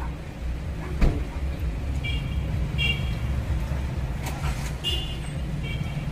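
Steady low rumble of motor vehicles and street traffic, with a single sharp thump about a second in and four short, high chirps.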